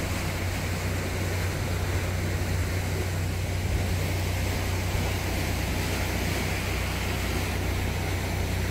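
Narrowboat's diesel engine idling steadily with a low hum, under an even rushing noise.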